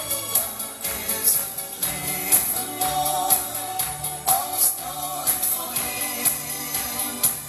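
A man singing a Dutch-language pop song into a microphone over backing music with a steady beat of bass notes and cymbal hits.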